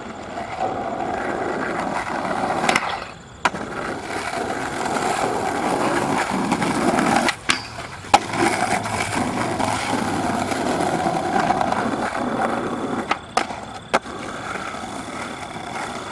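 Skateboard wheels rolling over rough, cracked concrete, with a few sharp clacks of the board striking the ground during tricks.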